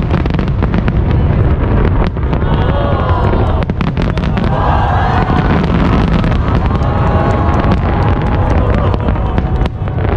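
Aerial fireworks shells bursting in quick succession: many sharp cracks and bangs over a continuous low rumble.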